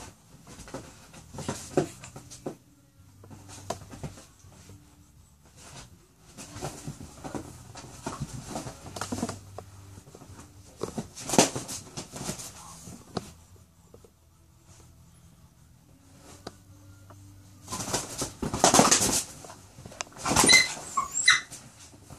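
A dog and a rooster play-fighting on a leather couch: irregular bursts of scuffling and scratching, loudest about halfway through and again near the end, where a few short high-pitched cries come through.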